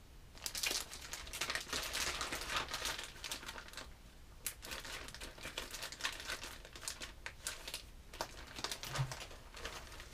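Plastic soft-bait lure packs crinkling as they are handled and slid into the clear plastic pages of a worm binder bag, an irregular run of crackles and rustles.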